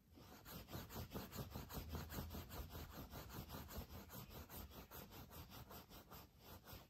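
Rapid rhythmic scratching, like fingernails rubbed back and forth on fabric, at about five strokes a second, starting and stopping abruptly.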